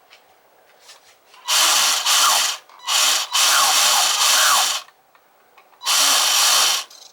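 Small electric motor of a radio-controlled model battleship running in three short bursts, each a harsh whirring whine that rises slightly in pitch, with quiet gaps between.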